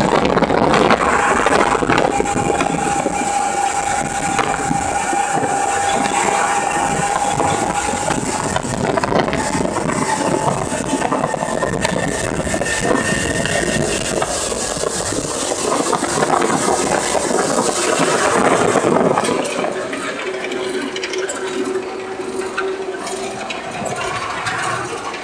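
Inside the cab of a 1941 Chevrolet G7113 tractor unit under way, its 4.8-litre straight-six petrol engine running under load with road noise and cab rattles. A steady whine runs through the first several seconds, and the noise eases a little near the end.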